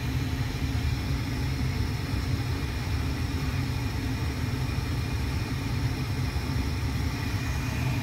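Lennox 80% gas furnace running with its burners lit: a steady low rumble with a faint high hum, unchanging, before the circulating blower motor has started.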